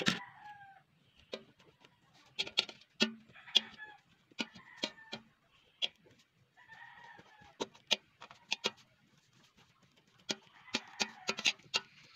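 Metal spoon clinking and scraping against a steel pot while mashing cooked sweet potato, in many quick, sharp clicks. A bird calls in the background several times.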